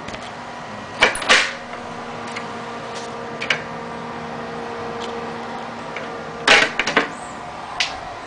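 Custom desktop computer running with a steady fan hum. Sharp knocks and clatter from handling cut in twice about a second in, again in a cluster past the middle, and once more near the end.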